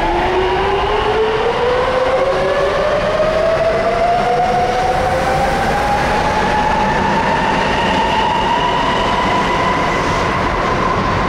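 Sapporo Municipal Subway Namboku Line 5000-series rubber-tyred train pulling away from the platform. Its inverter and traction motors whine in several tones that rise steadily in pitch as it gathers speed, over a loud running rumble.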